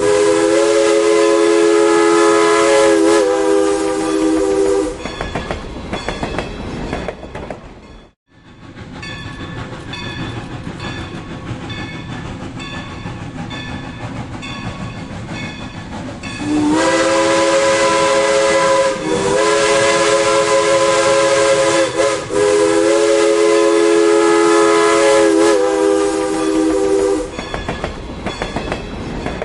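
Steam locomotive's chime whistle sounding a chord of several pitches, in a run of long blasts near the start and again in a second run in the latter half. Between the two runs the train rolls by with a steady rumble and rhythmic clickety-clack.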